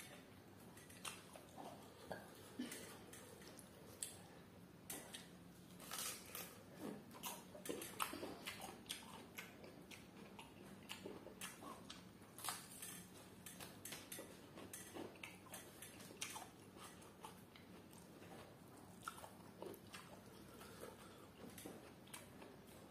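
Close-up eating sounds: irregular chewing and biting with many short, sharp clicks and soft wet smacks, as grilled fish and raw green vegetables are eaten by hand.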